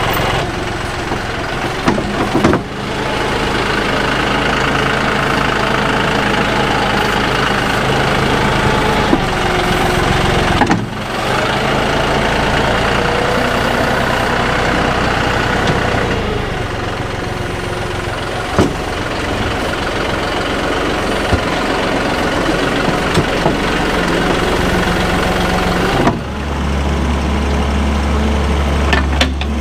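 John Deere 5055E tractor's diesel engine running under working load, as heard from several spliced clips; the sound changes abruptly a few times.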